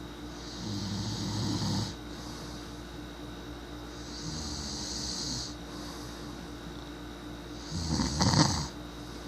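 A sleeping person snoring: three snores about three and a half seconds apart, the last one the loudest.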